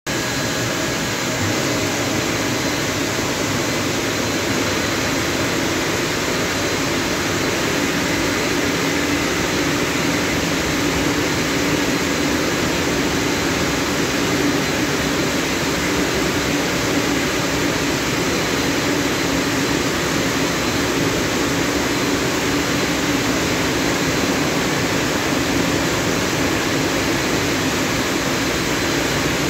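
Christ portal car-wash dryer blowing over a car: the gantry's blower fans make a loud, steady rush of air during the drying stage.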